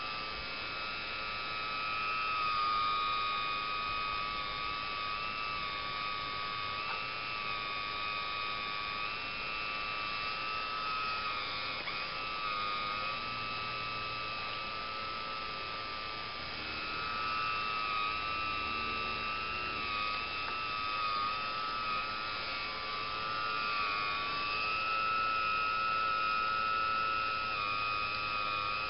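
Radio-controlled CAT 345 excavator's electric motors whining steadily as it swings and lifts logs with its grapple, the pitch dipping and rising slightly as the load changes.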